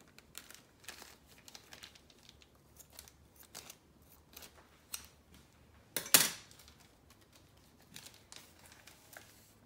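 Scissors snipping through a thin plastic bag, with soft plastic crinkling between the cuts. About six seconds in there is one loud, sharp crackle of plastic.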